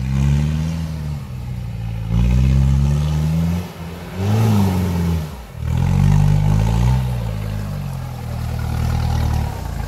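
Isuzu Trooper 4x4's engine revving hard under load while it drives up a rutted mud track, in about four surges that climb and fall back with short dips between.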